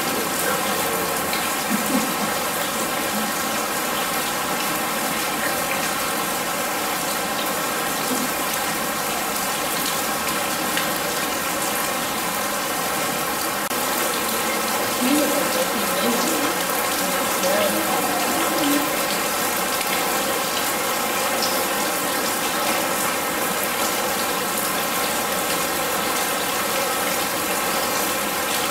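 Artificial rain falling steadily from above into a shallow pool of standing water, a continuous even hiss of drops splashing into water.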